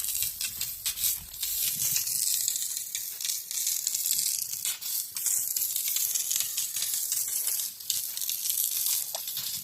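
Maandazi dough deep-frying in hot oil: a steady sizzle with scattered crackles.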